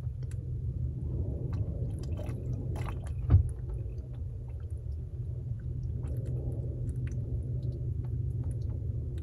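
Water gurgling and trickling through the sunroof drain hose of a 2008 Infiniti G37 coupe, draining freely because the drain is clear. It sounds over a steady low rumble, with many small wet clicks and a single louder knock about three and a half seconds in.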